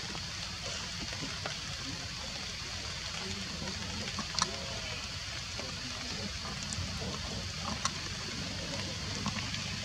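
Steady outdoor hiss of background noise, with a few faint sharp clicks, one about four and a half seconds in and another near eight seconds.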